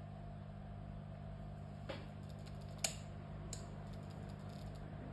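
Steady low electrical hum with three faint clicks in the middle, the second the sharpest.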